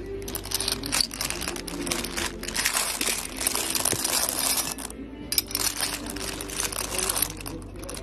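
A metal scoop digging through a heap of hard, shiny gold-coated oval candies, the pieces clattering and rattling against each other and the scoop in a dense continuous stream, with a short break a little before halfway.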